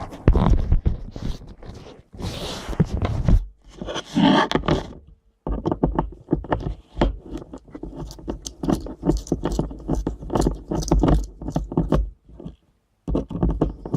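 A screwdriver undoing small screws in a jammer's circuit board and plastic case, heard close up: repeated scraping and clicking, with longer scrapes about two and four seconds in.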